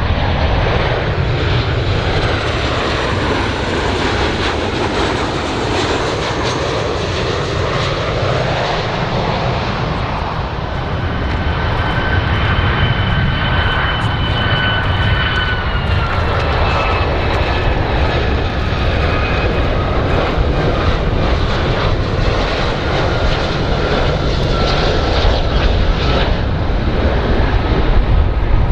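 Fixed-wing aircraft engines running loud and steady. A faint whine rides on top from about a third of the way in and slowly drops in pitch.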